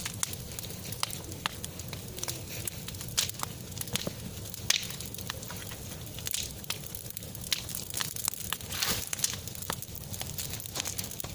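Bonfire crackling, with irregular sharp pops and snaps.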